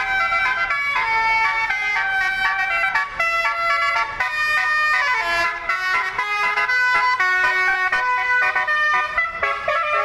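Indonesian tour bus 'telolet' musical horn, a bank of horns playing a fast tune: short notes and chords that jump to new pitches several times a second.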